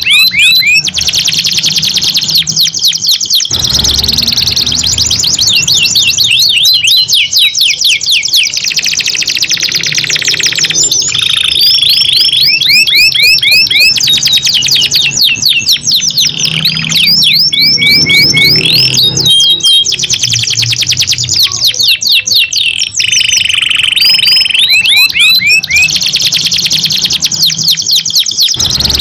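Domestic canaries singing long, rapid trills and rolls without pause, two birds answering each other in a song duel.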